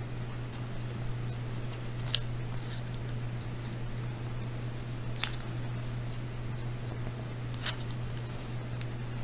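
Hands working soft polymer clay onto a wooden skewer over a ceramic tile: three sharp light clicks, about two and a half seconds apart, over a steady low hum.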